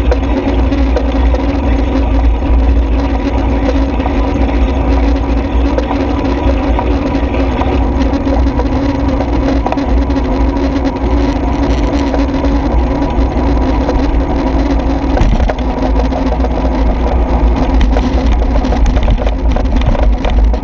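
Steady rolling noise and hum of a faired cycle riding along a cycle lane, with a strong low rumble. Rattling clicks grow over the last few seconds as it rolls onto rougher paving.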